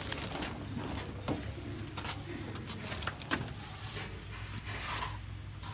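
Cloth rustling and being pulled off a wooden form on a vacuum press's rubber membrane, with scattered handling clicks, over a steady low hum.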